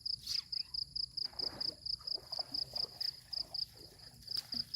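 An insect chirping in a steady, even rhythm of about five short high-pitched pulses a second.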